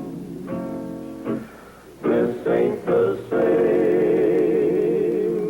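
Western cowboy song: a vocal group singing in harmony over guitar, a few short sung notes about two seconds in, then a long held chord with vibrato.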